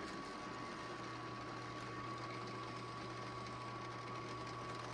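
Benchtop drill press running steadily, a constant motor hum with a thin high whine, while 1/16-inch vent holes are drilled into a vacuum-forming mold.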